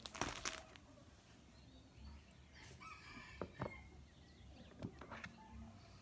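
Quiet handling sounds on a desk: a few soft knocks and crinkles as a bread roll in a plastic wrapper and a mug are set down, the mug onto a cork coaster.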